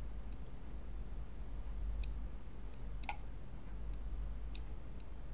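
Computer mouse button clicking: about seven short, sharp clicks at uneven intervals, over a steady low hum.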